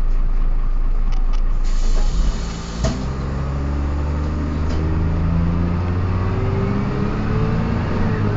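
Dennis Dart bus: a hiss of released air from about two seconds in, ending in a knock, then the drivetrain pulling away with tones that climb steadily in pitch. This fits the whining from the gears that the bus is known for.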